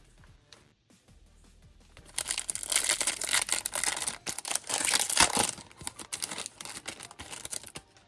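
Foil wrapper of a Topps baseball card pack being crinkled and torn open, a dense run of crackling rustles starting about two seconds in and lasting some six seconds.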